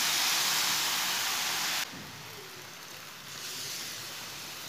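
Water poured into a hot frying pan of roasted semolina mixture, hissing and sizzling loudly as it hits the pan. About two seconds in the hiss drops suddenly to a quieter, steady sizzle.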